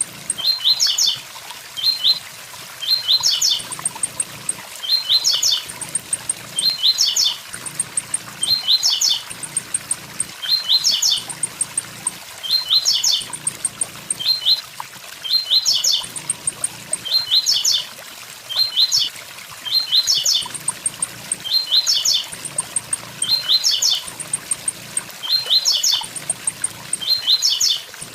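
Blue-black grassquit (tiziu) singing its 'tui tui zel zel' song: short, high, quick phrases repeated about every one to two seconds. A waterfall rushes steadily underneath.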